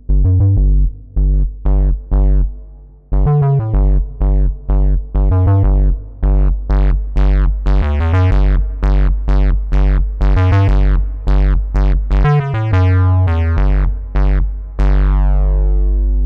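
BioTek 3 software synthesizer preset playing a rhythmic pattern of short, bass-heavy plucked notes, about two to three a second, that grows brighter toward the middle. Near the end it settles on one long held note that slowly fades.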